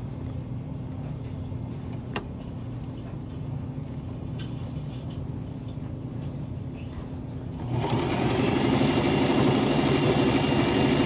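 Domestic electric sewing machine starting to stitch about eight seconds in, a loud fast even rattle of the needle running through the fabric. Before it, only a low steady hum and a single click about two seconds in.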